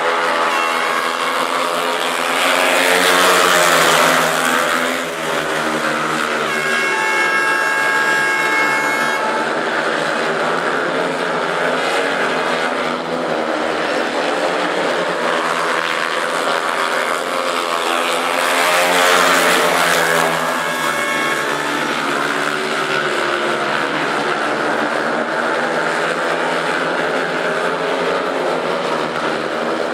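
Several 500 cc single-cylinder speedway motorcycles racing round the track together, their engines running hard and steadily. The noise swells twice as the pack passes closest, about three seconds in and again near the twenty-second mark. A brief steady higher tone comes in about seven seconds in.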